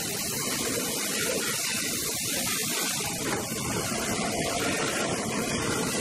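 Steady factory machinery noise from a sheet-metal tank production line: an even hiss and hum with no distinct strokes.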